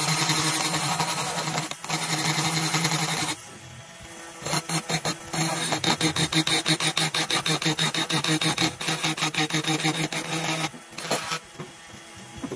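Cordless 18V brushless rotary tool spinning a tungsten carbide burr against the cast aluminium port of a Predator 212 cylinder head: a steady motor whine over a grinding rasp. It stops for about a second some three seconds in, then grinds on with a fast pulsing rise and fall, and stops near the end after one short last burst.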